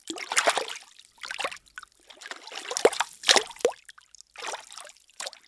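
Water in a bathtub being moved and splashed by hand: a run of irregular sloshes and splashes with short pauses between them.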